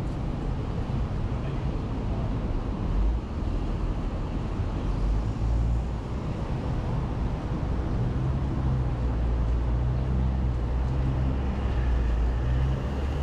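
Street traffic: vehicles running past with a steady low rumble, and a heavier engine hum growing stronger in the second half.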